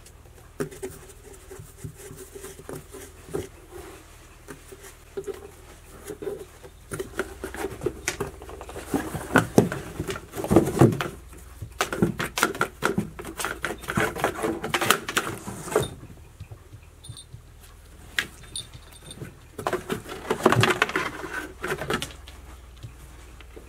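Cats pawing and scratching at a cardboard box, with scrapes and taps of claws on the cardboard and paws on a wooden floor. It comes in two busier, louder stretches, one midway and one near the end.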